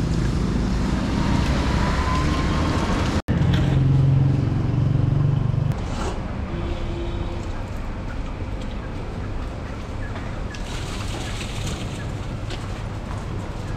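Street background noise with a steady low traffic rumble. About three seconds in it cuts off abruptly and a louder low hum follows for a couple of seconds before the noise settles lower.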